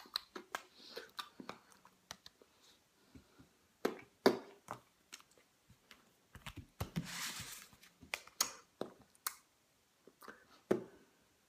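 Scattered short clicks and knocks, with a longer rustle about seven seconds in, as a paperback book is handled.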